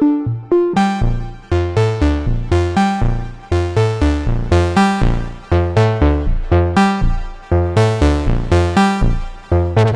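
Moog Subsequent 25 analog synthesizer playing an eighth-note sequence: short, punchy pitched notes that each die away quickly, about four a second, in a pattern that repeats every two seconds. About a second in, deep bass notes join.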